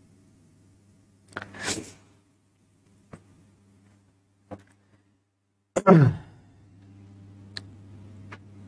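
A man's breath about a second and a half in, two faint mouth clicks, then a short, loud voiced sigh that falls in pitch about six seconds in. A faint low hum runs underneath.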